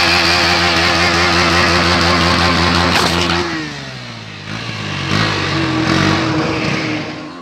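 KTM Duke motorcycle engine held at high revs during a rear-tyre burnout, with a loud hiss over it. About three and a half seconds in the revs fall away and the engine runs lower, then the sound cuts off suddenly near the end.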